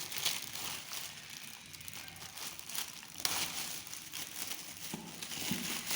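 Paper rustling and crinkling as booklets and cards are handled, with a few sharper rustles.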